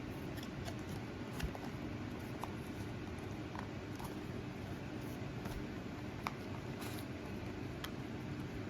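Scattered light clicks and taps of a product box and its packaging being handled and opened, over a steady low room hum.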